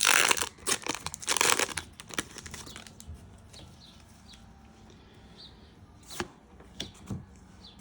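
A foil trading-card booster pack being torn open in two rough tearing bursts, followed by quieter handling of the cards with a few light clicks.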